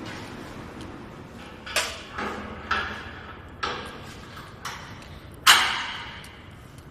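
Metal clanks and knocks from a tractor-mounted woodchipper's hopper and discharge chute being closed up: about six knocks spread over four seconds, the loudest about five and a half seconds in.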